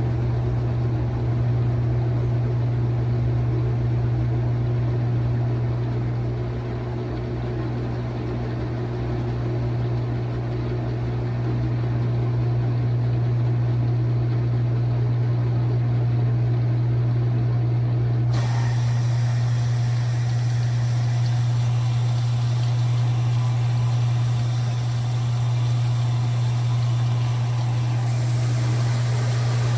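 Brastemp BWT09A top-loading washing machine in its spin cycle, its drum spinning with a steady low hum. About two-thirds of the way through, a steady hiss joins the hum.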